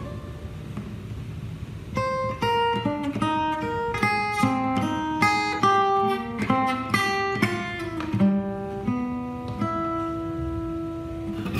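Breedlove Discovery Concert steel-string acoustic guitar playing a slow picked introduction, single notes following one another over ringing chords, ending on a held note.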